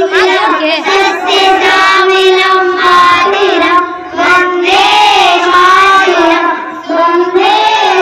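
A child singing a song, loud and close, with short breaks between phrases.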